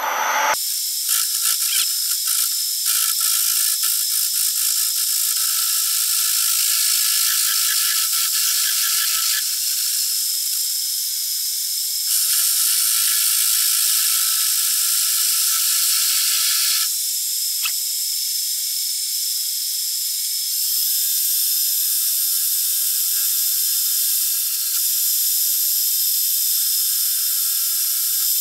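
Metal lathe taking a longitudinal turning cut along a cast aluminium billet: the steady, high-pitched noise of the tool cutting the aluminium as the lathe runs. It grows louder and eases off a few times.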